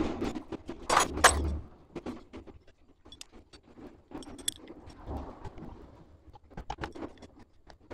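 Metal tools clicking and clinking against the magneto flywheel of a Honda CG125 engine while its centre nut is tightened with a long-handled wrench and the flywheel is held still. The clinks come in an irregular run and are loudest about a second in.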